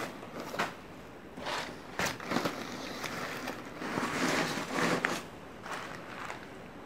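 Tinsel garland and paper rustling and crinkling in irregular bursts as a homemade tinsel Christmas tree is handled and turned, with a few light knocks.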